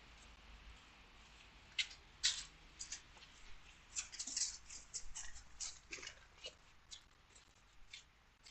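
Footsteps crunching on icy, frozen ground at walking pace, about two steps a second, starting about two seconds in.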